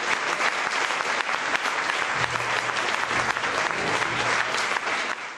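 Audience applauding and clapping in a small club, with a low steady hum joining about two seconds in and fading near the end.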